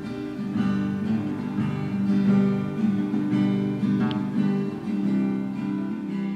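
Acoustic guitar being strummed, a run of chords.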